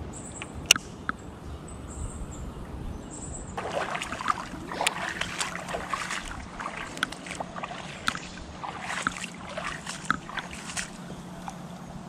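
A sharp click under a second in. From about three and a half seconds in, footsteps rustle through wet grass on a flooded bank, with many small irregular crunches and clicks.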